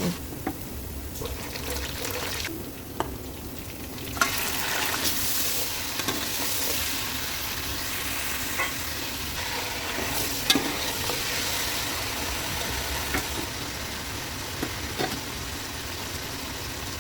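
Chicken pieces frying in oil with onions, ginger and garlic, sizzling in the pan while being stirred, with scattered clicks of the spoon against the pan. The sizzle gets louder about four seconds in.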